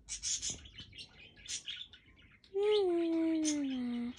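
Budgerigar chirping and chattering in short, scratchy bursts while held and stroked. In the second half a long humming tone slides slowly down in pitch for over a second.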